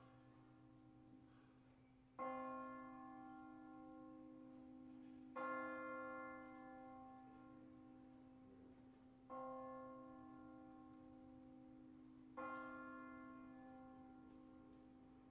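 A church bell from the tower's eight-bell peal, swinging on its wheel and striking four times at slow, slightly uneven intervals of about three to four seconds. Each stroke rings on and fades slowly over a low hum.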